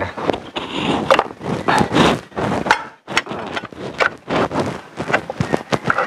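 Parts and hand tools being handled while refitting a Honda ADV 150 scooter's swing-arm area and tire hugger: a run of irregular clicks and knocks with short scrapes.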